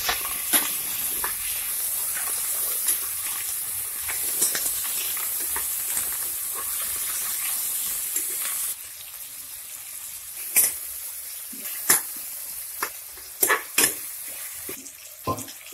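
Chopped tomatoes, onions, green chillies and curry leaves sizzling in hot oil in an aluminium pressure cooker pan as they are stirred. The sizzle drops noticeably a little past halfway, and after that several sharp knocks and scrapes against the pan come through.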